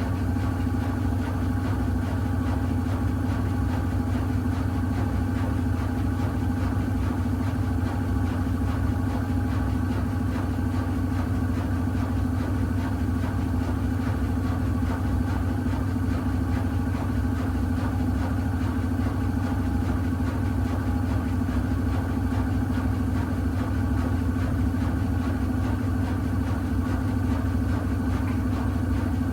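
Miele W1 Active WCA 030 washing machine spinning its drum at a constant speed, driven by its Profi-Eco motor. It is a steady hum with a higher motor whine and no pauses or tumbling rhythm.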